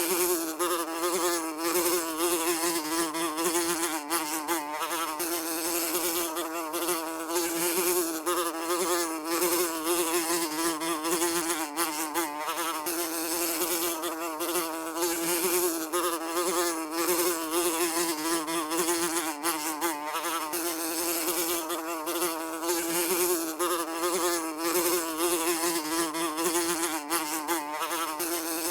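Housefly buzzing in continuous flight, a steady drone whose pitch wavers slightly up and down as it flies about.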